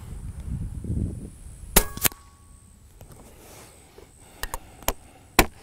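Daystate Pulsar .25 electronic-action PCP air rifle firing a pellet: a sharp crack about two seconds in, with a second sharp crack a quarter second later. Several lighter clicks follow near the end.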